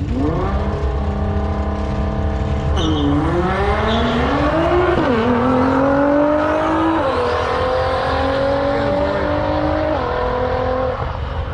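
Nissan GTR R35's twin-turbo V6 accelerating hard down a drag strip. Its pitch climbs and drops sharply four times as it upshifts through the gears.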